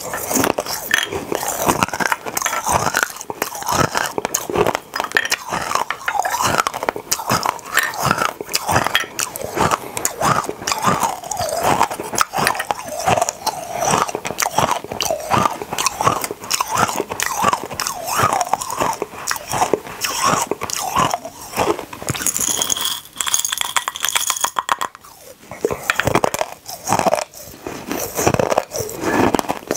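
Tiny hard candy beads being crunched and chewed in the mouth, close on a clip-on microphone: a dense, continuous run of crisp cracks.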